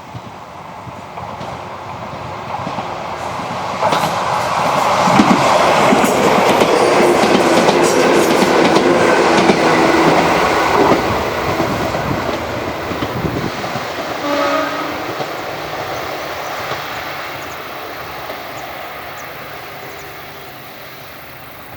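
Izuhakone Railway 1100 series electric train (ex-Seibu 701 series) approaching, passing close by with its wheels clattering over the rail joints, then fading into the distance. A brief pitched tone sounds about two-thirds of the way through.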